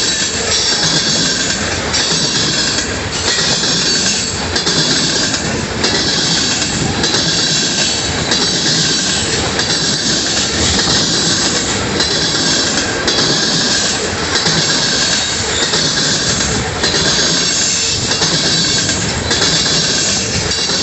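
Freight train of tank cars rolling past close by: a steady rumble of steel wheels on rail with a high-pitched squeal that breaks off briefly about every second and a half.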